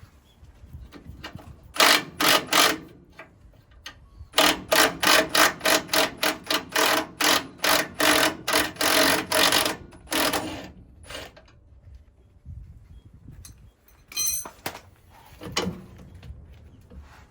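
Repeated hammer blows on metal: three strikes, then a steady run of about fifteen at roughly three a second, with a couple of single knocks near the end.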